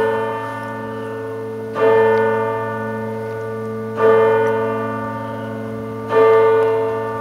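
A single church bell tolling, struck three times about two seconds apart, each stroke ringing on and fading slowly, over a steady low hum.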